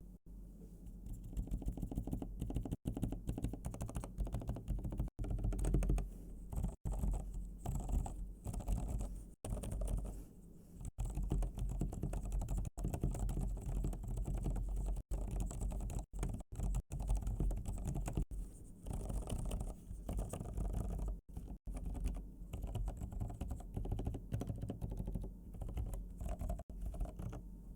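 Mechanical keyboard fitted with Kailh Deep Sea Silent Pro silent switches, typed on continuously in quick runs of keystrokes; the strokes are muffled and low.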